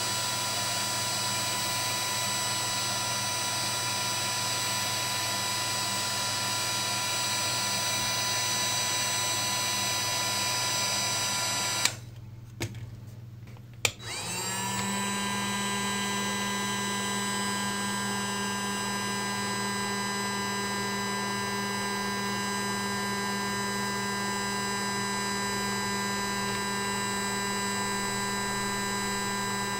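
Parkside PHLGA 20-Li A1 cordless hot air gun's fan motor running steadily at full power, a constant airy rush with a whine. About twelve seconds in it breaks off with a click, and some two seconds later it starts up again, its whine rising briefly to speed before holding steady.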